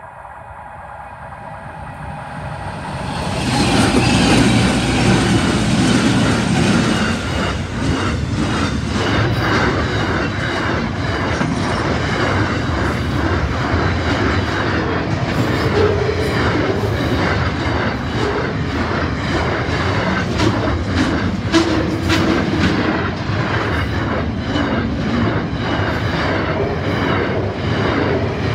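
Container freight train led by NR class diesel-electric locomotives approaching and passing. The engine drone builds over the first few seconds and is loudest as the locomotives go by about four seconds in. After that a long string of container wagons rolls past with a steady rumble and rhythmic clickety-clack from the wheels.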